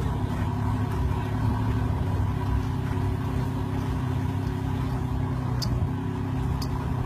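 2016 Toyota Tacoma's engine running steadily in reverse with Crawl Control engaged, the system driving the truck out of sand with no throttle from the driver. Two short clicks near the end.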